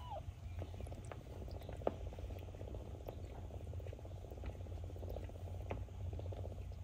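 Cat purring steadily, a fast fine rhythm, with scattered soft clicks and a short squeak at the very start.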